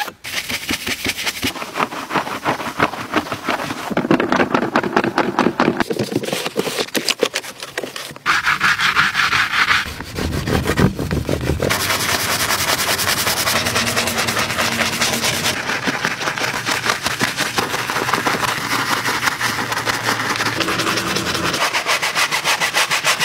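Rapid, repeated scrubbing strokes of car detailing: a detailing brush working through thick foam on an alloy wheel, with pad-on-leather wiping of an armrest at the start. The texture shifts abruptly every few seconds.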